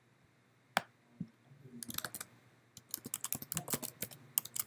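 Typing on a computer keyboard: one key click under a second in, then two quick runs of keystrokes from about two seconds in.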